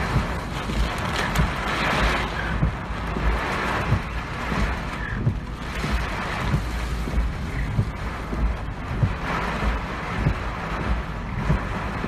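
Typhoon wind gusting hard, the rushing swelling and easing every second or two, with heavy wind buffeting rumbling on the phone's microphone.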